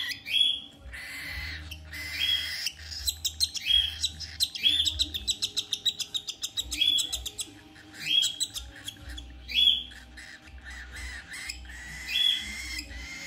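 Young cockatiel calling repeatedly while being syringe-fed: short calls that rise in pitch, with a fast run of clicking chirps, about eight a second, between about four and seven seconds in.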